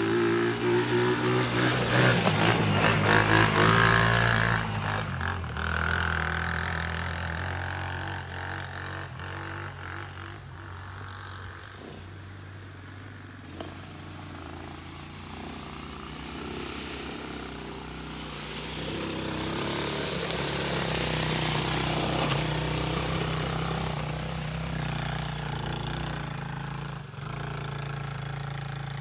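Small single-cylinder four-stroke engines of two KXD 125 cc ATVs running under throttle, one after the other. The first is loud at first and fades after about five seconds; the second grows louder from about eighteen seconds in.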